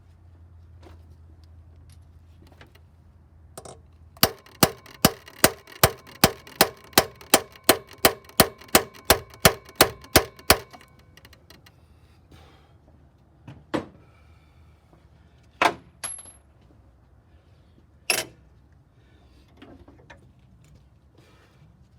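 Hammer blows on a steel chisel set against a cylinder head bolt of a Chevy 4.2 inline-six, to break the bolt loose: a run of about sixteen sharp, ringing metal strikes, roughly two and a half a second, then three single strikes a couple of seconds apart.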